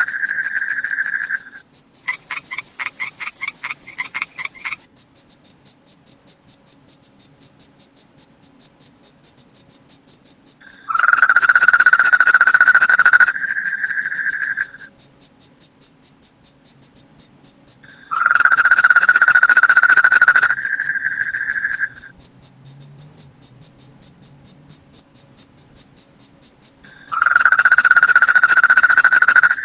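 Crickets chirping at night in a fast, steady, high-pitched pulse. A second, lower and louder trill comes in for about three seconds roughly every eight seconds, three times, and a brief rattling trill sounds near the start.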